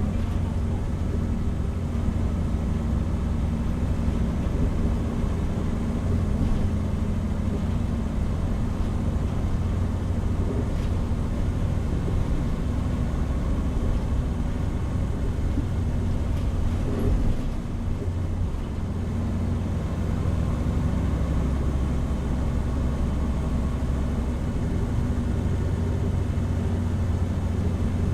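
Hino Rainbow HR city bus (PB-HR7JHAE) under way, heard from inside: its diesel engine drones steadily under load with road noise. About two-thirds of the way through the drone dips briefly with a knock, then the engine pulls on.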